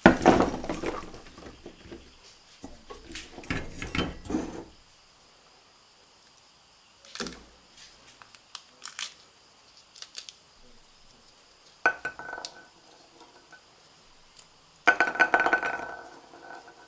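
Fresh peas being shelled by hand: pods split open and the peas rattle and clink into a stainless steel bowl in several irregular bursts, the bowl ringing briefly now and then.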